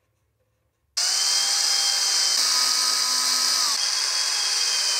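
Cordless drill driving screws through a picture ledge into wall plugs. The motor starts about a second in and runs steadily, its whine shifting in pitch twice as the screw goes in.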